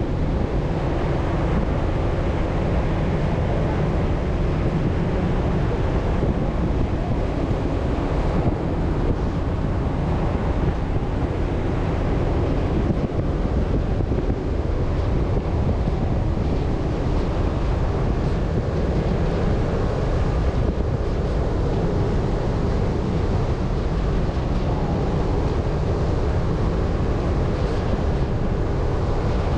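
Steady wind noise on the microphone over the running noise of a Chevrolet Colorado ZR2 Bison pickup driving on soft beach sand.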